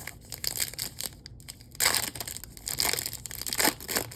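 Crinkling and crunching of a foil trading-card pack wrapper being handled, with the loudest bursts about two seconds in and again around three seconds in.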